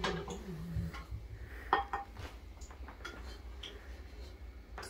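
A wooden spoon knocking and clinking against an aluminium cooking pot and a glass bowl as sweetened coconut filling is scooped out: a few light knocks, two close together a little under two seconds in and another near the end.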